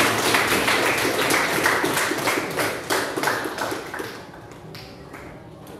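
Applause from a small group of people clapping, dense at first and then thinning out and fading over the last second or two.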